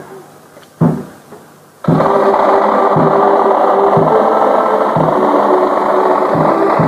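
A drum is struck once, then about two seconds in an accordion band strikes up a tune, its reeds sounding steady held notes over a bass drum beating about once a second.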